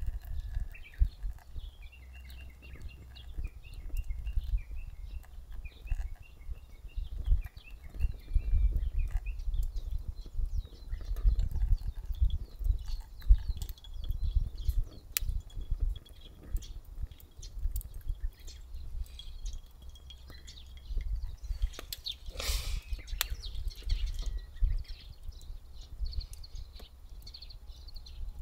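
Small wood fire crackling in a folding stainless box stove, with scattered sharp pops, while birds chirp in the background. A brief louder rustling burst comes about two-thirds of the way through.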